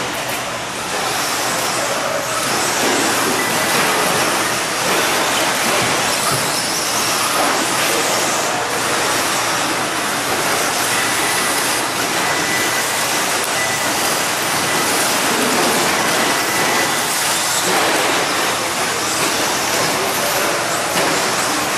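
Electric 2WD short course RC trucks racing on a dirt track: a loud, steady din of many small electric motors and drivetrains whining and tyres churning the dirt, with no break.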